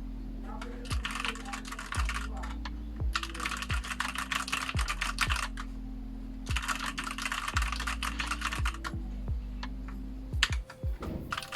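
Typing on a Rakk Lam-Ang Lite mechanical keyboard with linear red switches: fast runs of key clacks in several bursts of a second or two, over background music with a steady beat.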